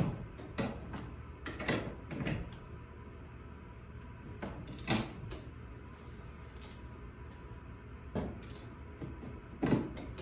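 Irregular metal clinks and knocks of a socket wrench being fitted onto and worked on bolts, with the sharpest knocks about five seconds in and near the end.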